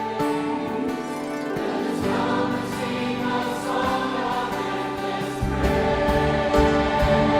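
Choir singing with orchestra. Lower instruments come in about two seconds in, and the music grows fuller and louder near the end.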